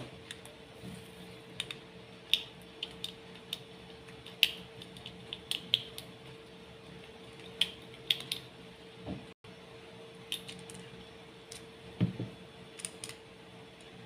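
Plastic pieces of a MoYu Super RS3M ball-core 3x3 speedcube clicking and snapping as the cube is handled and taken apart by hand: irregular sharp clicks, with two soft low thumps about nine and twelve seconds in. A faint steady hum underneath.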